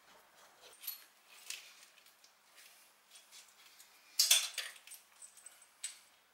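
Hands working braided breather hoses and their fittings into place in an engine bay: scattered light clicks and rustles of hose and plastic, with one louder clatter about four seconds in.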